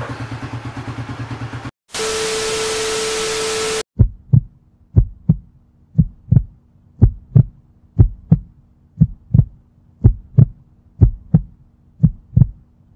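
Heartbeat sound effect: loud paired thumps about once a second over a faint low drone. Before it, the Raider 150 Fi's single-cylinder engine idles and cuts off after about two seconds. A short hiss with a steady tone follows.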